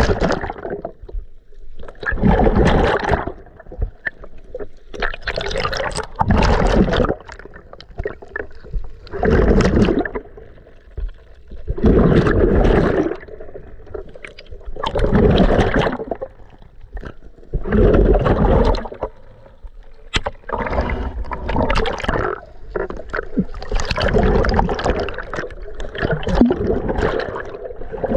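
Water sloshing and rushing past an underwater camera in bursts about every three seconds as a snorkeler swims, muffled by the water.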